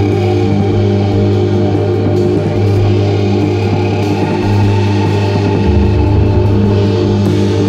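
Eurorack modular synthesizer droning in low, organ-like sustained tones that step to a new pitch a few times, with a drum kit played along under it. The synth is driven from the drums through a Sonicsmith Convertor E1 audio-to-CV module.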